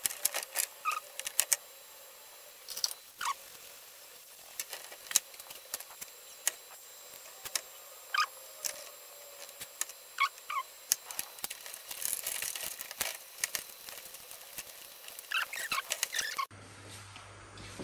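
Scattered light clicks, ticks and small squeaky creaks as fingers handle a small circuit board, its thin wiring and plastic connector inside a TV's rear housing.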